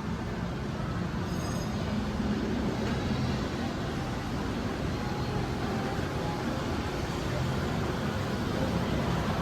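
Steady mechanical running noise of a Balloon Flight ride car travelling along its overhead track, with a faint high tone about a second and a half in.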